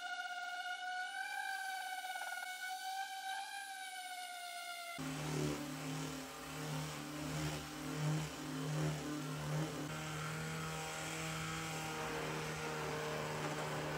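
Cordless random orbital sander running on bare pine with a steady high whine that wavers slightly. About five seconds in the sound changes abruptly to a Ryobi cordless sander running rougher and buzzier as it scuff-sands painted wood.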